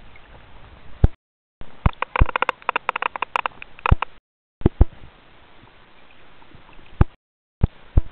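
Small sea waves sloshing and splashing against a camera held at the waterline, with sharp knocks of handling. The sound comes in short pieces broken by brief total silences, busiest with splashes in the second piece.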